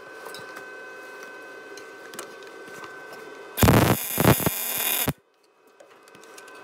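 MIG welder arc crackling for about a second and a half, starting a few seconds in with a short break, as a nut is welded onto a broken exhaust manifold stud to extract it. Before the weld there is only a low steady hum.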